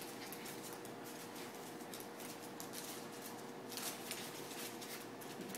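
Toy schnauzer puppies' paws and claws pattering and scrabbling on a hardwood floor as they wrestle, with a faint steady hum underneath.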